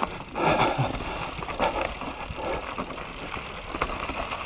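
Enduro mountain bike rolling down a dry dirt singletrack: tyre noise on the dirt with frequent small rattles and knocks from the bike over the bumps.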